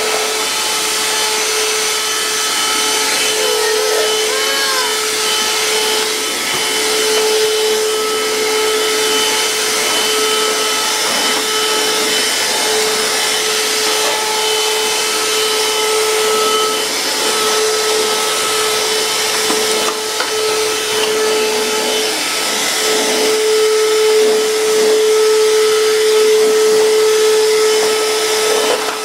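Electric vacuum cleaner running steadily: a constant motor whine over a rush of air.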